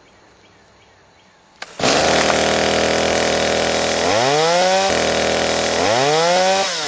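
Skil gasoline chainsaw's two-stroke engine catching on a pull of the starter rope: it starts suddenly about two seconds in, runs loud and steady, and revs up twice with a rising whine before settling back.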